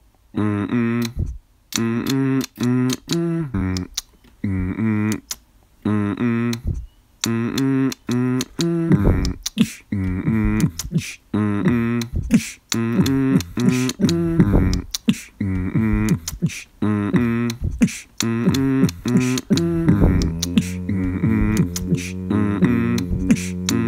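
A man beatboxing: sharp mouth clicks in a steady rhythm over short pitched vocal notes in a repeating melody. From about twenty seconds in, a held low hum runs underneath.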